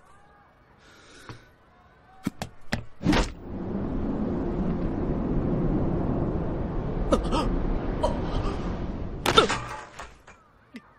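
Pole vault sound effects. A few quick footfalls and a sharp knock come about two to three seconds in, then a long rushing whoosh as the vaulter swings up and over the bar. A heavy thump near the end is him landing on the mat.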